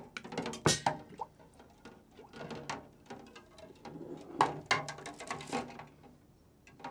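Kitchen brewing gear being handled: a string of scattered knocks and clinks from a metal sieve, a plastic funnel and a glass jug, with one sharp knock about a second in and another about two-thirds of the way through.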